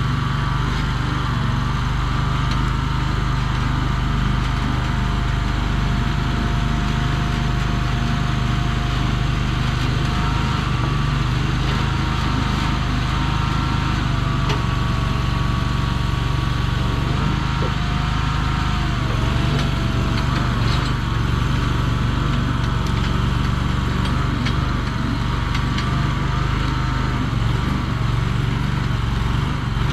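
Mini skid steer's small gasoline engine running steadily, with a fainter higher whine that shifts a little in pitch over it.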